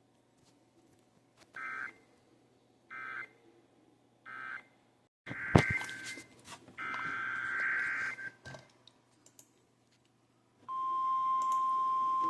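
NOAA Weather Radio SAME data tones: three short warbling bursts of digital tones, a sharp click with a crackle, then a longer burst of the same tones. Near the end the steady 1050 Hz weather-radio warning alarm tone comes on, the signal that a new warning is about to be read.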